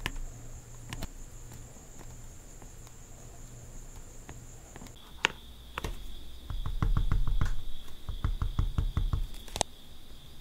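Close-up handling of nail-art tools on a plastic nail stand: a few sharp small clicks and two short runs of quick tapping at about eight taps a second, with a faint steady high whine behind that drops in pitch about halfway.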